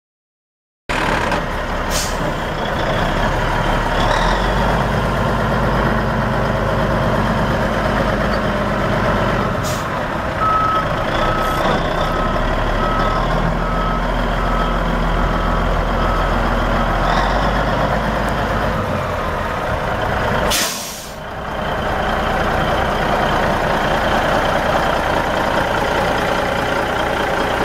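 The Caterpillar 14.6-litre inline-six turbo diesel of a 1985 Freightliner FLC tank truck idling steadily, starting about a second in. Partway through, a run of regular, evenly spaced beeps sounds over it for several seconds.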